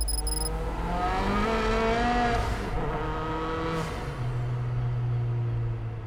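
Car engine of the Pogea Racing ARES002, a tuned Abarth 500 with a turbocharged four-cylinder, revving up. The pitch rises over the first couple of seconds, then settles to a lower steady note about four seconds in.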